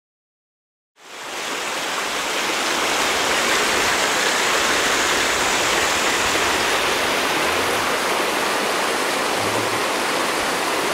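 Shallow river rapids rushing over rock ledges: a steady, even rush of water that comes in about a second in.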